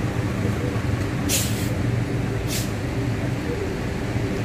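Engine of a Sinar Jaya Suites Family coach bus running low and steady as it creeps in to dock, with two short hisses of air from its brakes, about a second and a half and two and a half seconds in.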